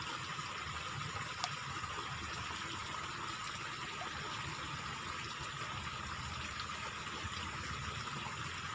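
Water flowing steadily along a small ditch, with one sharp click about a second and a half in.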